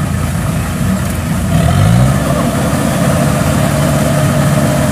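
Kubota DC70 combine harvester's diesel engine running under load, revving up about a second and a half in and then holding at the higher speed as the machine climbs a slippery mud bank.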